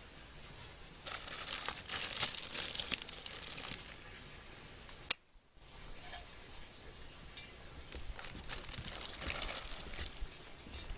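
A clear plastic bag crinkling as it is handled, in two spells, with a single sharp click about halfway through.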